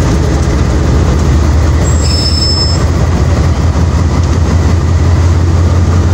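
Diesel-electric locomotive idling close by, a loud steady low engine hum. A faint thin high whine is heard briefly about two seconds in.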